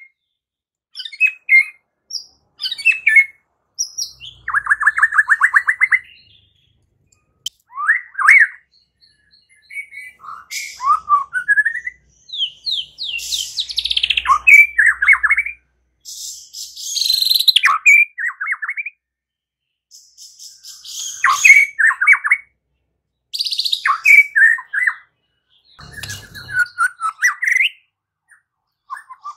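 White-rumped shama singing: varied phrases of clear gliding whistles, a fast trill and harsher scratchy notes, broken by short pauses.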